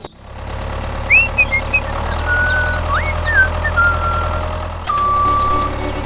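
A low, steady engine rumble, like an idling vehicle, with a few short chirping whistles over it; near the end a steady high beep starts.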